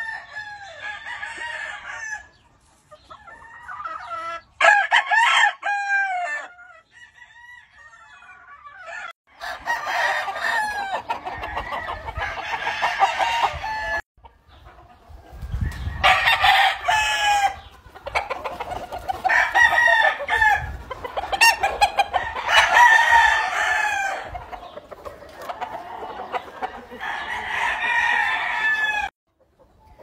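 Gamefowl roosters crowing again and again, one long crow after another, with the sound breaking off abruptly a few times.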